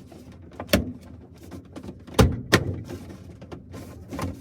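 Four knocks and thunks of hard objects being handled and set down, the loudest about two seconds in, followed quickly by a second.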